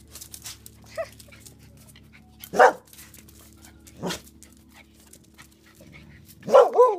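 Dogs barking while playing: a few short single barks about a second and a half apart, then a louder burst of barking near the end.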